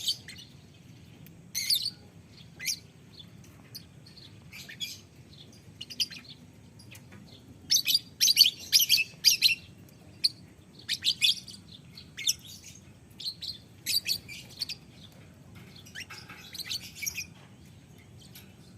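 Lovebird giving sharp, high chirping calls in short bursts, with a longer rapid run of calls about eight seconds in.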